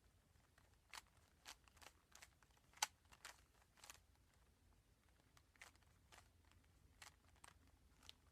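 Plastic speed cube being turned by hand: faint, irregular clicks as its layers snap round, about one or two a second, with one sharper click a little under three seconds in.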